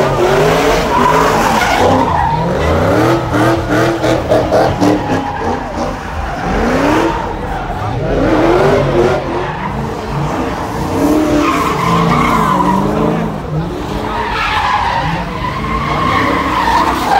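Cars doing burnouts: engines revving up and down hard again and again while the tires squeal. There is a rapid string of sharp pops about four seconds in.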